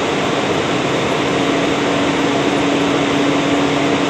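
Blower door fan running steadily at full test speed: a loud, even rush of air with a steady hum. It is depressurizing the house to about minus 50 pascals for an air-tightness test, pulling around 900 cubic feet of air per minute.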